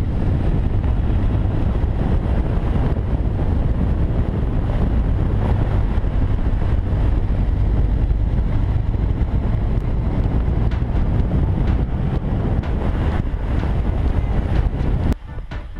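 Heavy wind buffeting on the microphone over a BMW R1200 motorcycle's flat-twin engine running at riding speed. It cuts off suddenly near the end.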